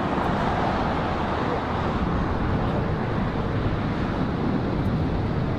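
Jet engines of an Airbus A350-900 airliner: a steady rumbling roar that eases a little over the first couple of seconds.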